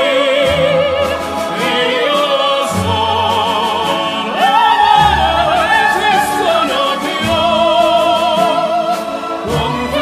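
Music: an operatic voice singing long notes with a wide vibrato over orchestral accompaniment.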